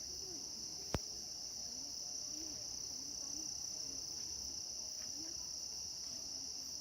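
Steady, high-pitched chorus of forest insects such as crickets, shrilling without a break. A single sharp click about a second in.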